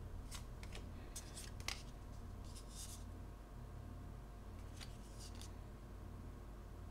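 Magic: The Gathering cards being handled and sorted: a few short, faint swishes and flicks of card sliding against card as they are moved through the hand and laid down. The sounds cluster in the first three seconds and again around five seconds in, over a low steady hum.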